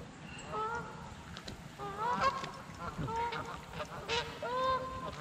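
Geese honking, a string of short calls repeated irregularly throughout.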